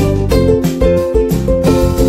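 Background music: a plucked-string melody over a steady beat.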